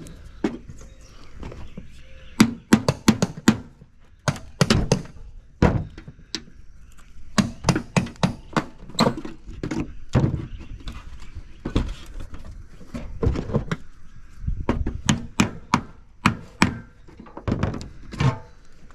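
Hammering: repeated sharp knocks and thuds struck in irregular quick runs of two to five blows, with short pauses between runs.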